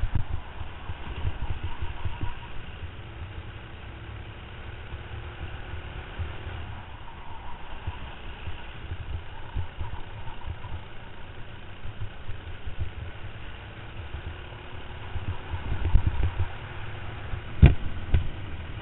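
Racing kart's engine running at speed, heard faintly under heavy wind buffeting on an onboard camera, its pitch drifting up and down through the corners. One sharp knock near the end.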